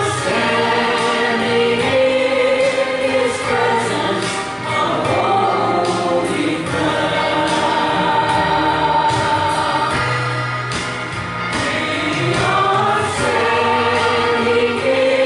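Church congregation singing a slow worship song together, holding long notes over instrumental backing.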